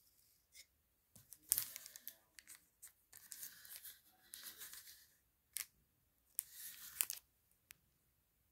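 Fingers handling and turning a clear plastic model-car display box: a run of crinkly scraping and rubbing sounds broken by sharp clicks, the loudest click about a second and a half in.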